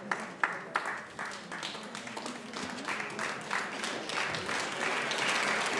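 Audience applauding: a few separate claps at first, building into steady applause over the next few seconds.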